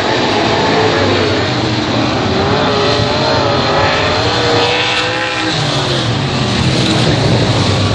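Race car engines running hard during a speedway race, their pitch rising and falling as the cars pass and rev through the laps.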